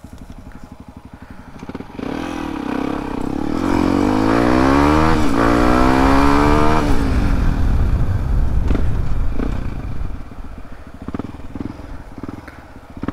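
Yamaha WR155R's stock single-cylinder engine idling with its idle sitting high, then pulling away: the revs climb in steps through upshifts, with a clear gear change about five seconds in. After about seven seconds the throttle closes and the revs fall away as the bike slows, dropping back toward idle near the end.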